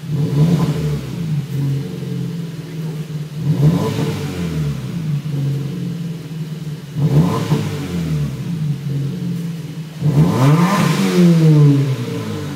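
Exhaust of a 2012 Kia Forte Koup's 1.6 Gamma GDI inline-four, with the stock rear muffler removed so only the stock centre muffler remains, revved four times from idle. Each rev rises and falls back to idle; the last, near the end, goes higher and is held about two seconds.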